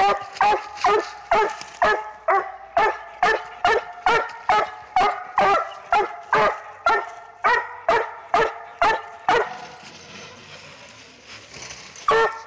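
A six-month-old coonhound pup barking at a raccoon in rapid, evenly spaced barks, about two a second, for roughly nine seconds. The barking then breaks off, and one more bark comes near the end.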